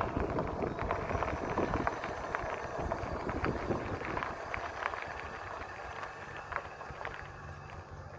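E-bike rolling along a paved road: a steady rush of wind and tyre noise with irregular rattling clicks from the bike. The rattling eases off about five seconds in, and a low steady hum comes in near the end.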